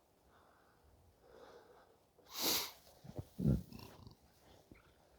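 A short, sharp nasal breath about halfway through, followed by a few low thumps.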